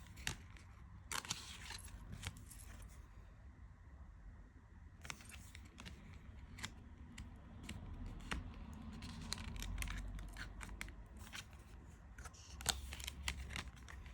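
Faint handling of stiff tarot cards: a scattering of light clicks, taps and short slides as cards are turned over and laid down.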